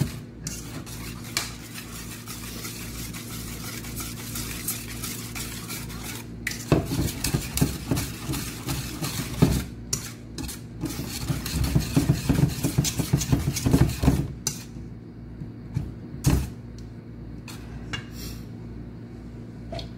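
Wire whisk clinking and scraping against a stainless steel mixing bowl while stirring a cream mixture, in irregular strokes that are busiest in the middle and thin out to a few taps near the end. A steady low hum runs underneath.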